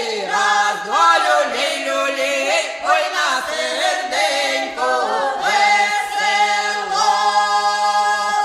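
Unaccompanied group of voices singing a Ukrainian spring folk song, ending on a long held note in the last second or so.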